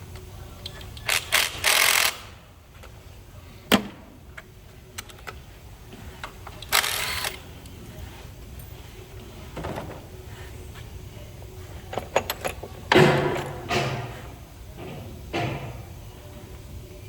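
Scattered knocks, clunks and short scraping noises of tools and parts being handled in a small workshop, some eight separate bursts with a sharp knock about four seconds in and the loudest clatter about thirteen seconds in.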